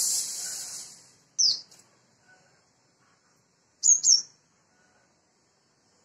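Sunbird giving short, sharp, high chirps that drop in pitch: one about a second and a half in, then a quick pair about four seconds in. At the start a loud hissing rush of noise fades out over about a second.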